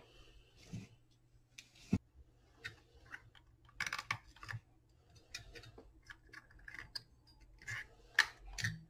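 Scattered light clicks and scrapes of hand tools, a pair of side cutters among them, against the plastic case and circuit board of an opened lithium-ion tool battery pack. The sharpest click comes about two seconds in.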